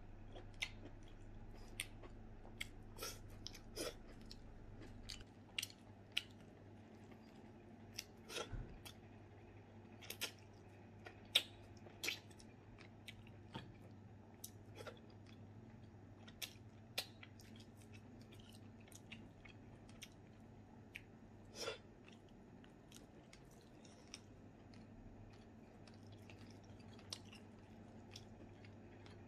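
A man chewing food with his mouth near the microphone: faint wet mouth clicks and smacks at irregular intervals, a few louder than the rest.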